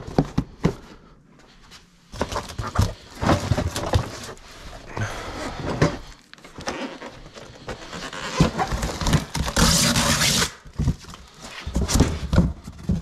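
Cardboard boxes of kitchenware being handled, shifted and opened: an irregular run of knocks, thuds and scrapes, with a second-long rustle about ten seconds in.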